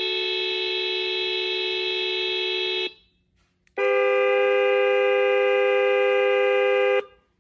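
Electronic car-horn sounds from an RC car sound module's speaker: two long, steady horn blasts of about three seconds each, separated by a short gap. The second blast has a different, lower-sitting chord of tones and is slightly louder.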